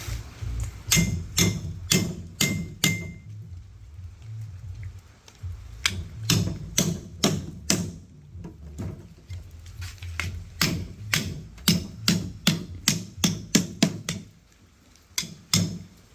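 A blade chopping through a large fish, in runs of quick blows about two to three a second with short pauses between them, over a steady low hum.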